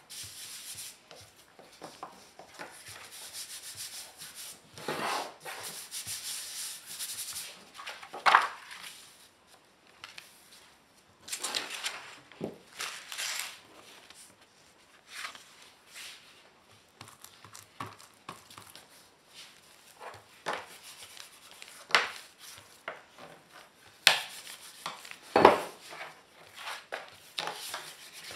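Sheets of paper and board being slid, handled and rubbed flat by hand on a worktop: irregular swishes and rubbing, with a few sharp knocks scattered through.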